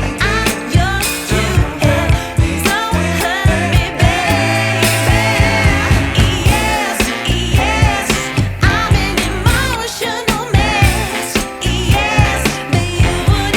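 Background pop music with a female singing voice over a steady beat.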